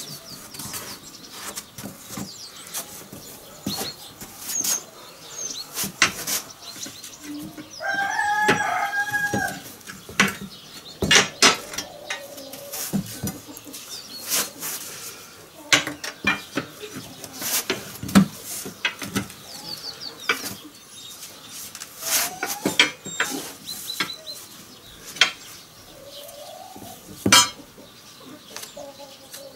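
Steel tyre irons clanking and knocking against the steel rim of a GAZ wheel while being levered to push the wheel disc down out of the tyre; the clanks come irregularly throughout. A rooster crows once about eight seconds in, and shorter clucking calls come later.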